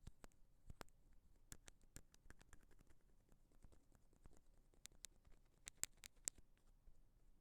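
Ear pick scratching and clicking at an earphone microphone in ear-cleaning ASMR: soft, irregular little scrapes and ticks, with two sharper clicks near the end.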